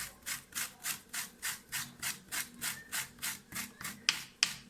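Fresh ginger root rubbed back and forth on a metal hand grater, a steady run of rasping strokes at about four a second.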